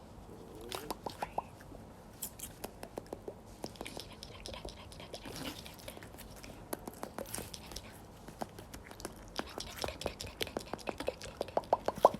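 Slime being squeezed and worked by hand: irregular sticky, wet clicks and pops, sometimes in quick little runs.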